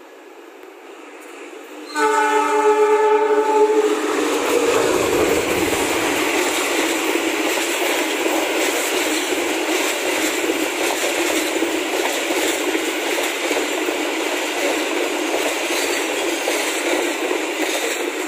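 KAI CC206 diesel-electric locomotive sounds its horn in one blast of about two seconds, then the locomotive and its passenger coaches run past with a steady rumble and wheel-on-rail rattle.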